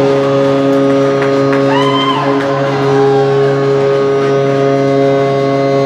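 Arena sound-system music: a single chord held steady without change, with a few brief shouts from the stands around the middle.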